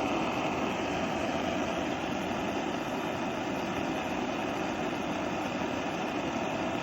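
Antique pressurised oil stove burning with a steady rushing hiss, its fuel vaporised and burning as gas like a pressure lantern. The burner is pumped up and running normally.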